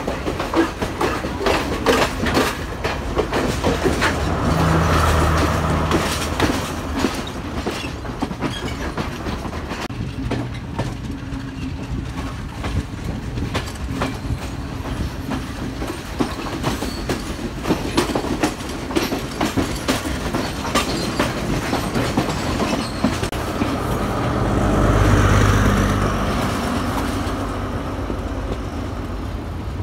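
Passenger trains passing close by on the track: a steady rumble with repeated clickety-clack of wheels running over rail joints. The sound grows louder twice, about five seconds in and again near the end, as a train comes by.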